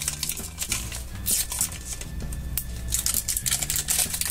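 Clear plastic shrink wrap being peeled off a toy surprise ball, crinkling in quick, irregular crackles, over background music with steady low notes.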